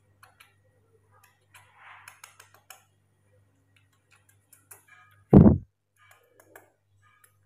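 Faint scattered clicks over a low steady hum, then a single short, loud thump a little past five seconds in.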